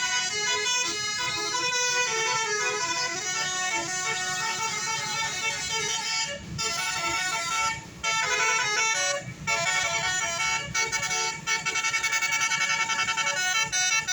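Telolet basuri bus horn, a set of air-horn trumpets, playing a tune of held notes that step from pitch to pitch with a few short breaks. Near the end it plays a quick run of short repeated notes.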